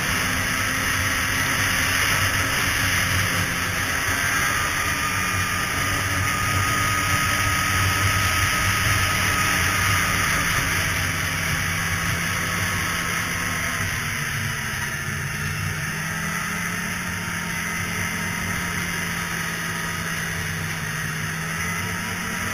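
Polaris two-stroke snowmobile engine running steadily at trail-cruising speed, heard from the rider's helmet with a hiss of wind and track noise over it; it eases off slightly about halfway through.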